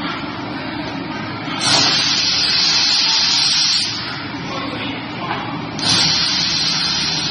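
Crusher machine for car interior trim running steadily, with two loud hiss-like shredding noises as trim panels are fed into its toothed rollers: the first lasts about two seconds, and a shorter one comes near the end.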